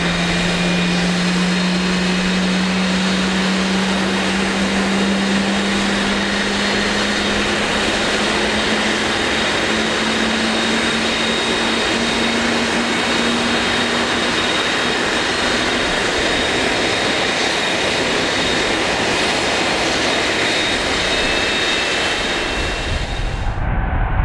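Turbofan jet engines of a wide-body trijet freighter running steadily on the ground: a loud even rush with a thin high whine and a low hum that slowly creeps up in pitch before fading out. Near the end the sound cuts abruptly to a deep, low jet rumble.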